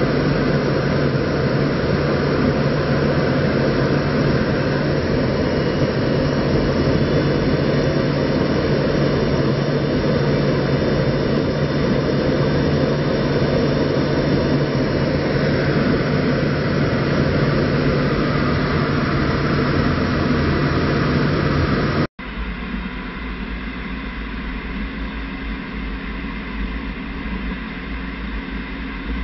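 Steady roar of engine and airflow noise heard on board an aircraft in flight, with a constant low drone. After about twenty seconds it cuts abruptly to a quieter, deeper rumble.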